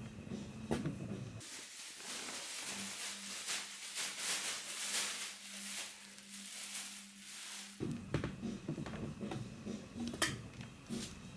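Thin plastic bag rustling and crinkling as a cat moves under and inside it, in irregular crackly bursts, most dense through the middle of the stretch.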